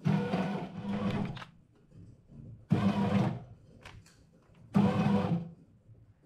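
Moulinex Home Bread bread machine starting its kneading: the motor turns the paddle in short bursts about every two seconds, working the flour and liquids into dough.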